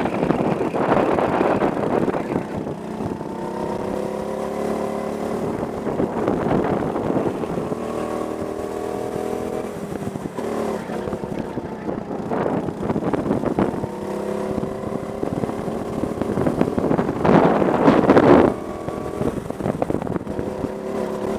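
Go-kart engine running hard over several stretches of a lap, its pitch climbing as it accelerates and then dropping back for corners. Loud gusts of wind buffet the microphone several times, the loudest near the end.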